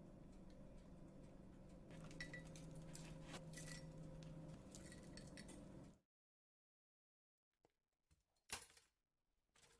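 Faint light clinks of kitchenware over quiet room tone. The sound cuts out to dead silence about six seconds in, followed by a few isolated faint clicks.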